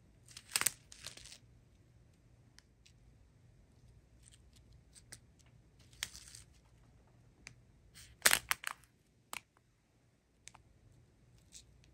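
Plastic strips of sealed diamond-painting drill bags crinkling and rustling as they are handled, in short spells, loudest about eight seconds in, with a few light clicks between.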